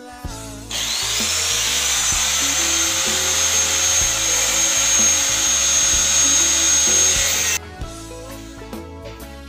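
Handheld electric angle grinder switched on a little under a second in, its whine rising as the disc spins up. It runs steadily for about seven seconds, then cuts off abruptly. Background music plays underneath.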